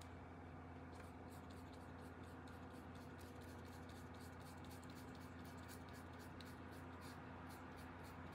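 Paintbrush loaded with gouache scratching across paper in short quick strokes, several a second, starting about a second in, over a faint steady hum.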